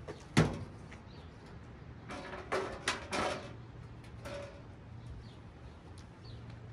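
A sharp knock near the start, then a cluster of knocks and rattles a couple of seconds later, from handling parts at the car's crash-damaged front end. Faint bird chirps are heard in between.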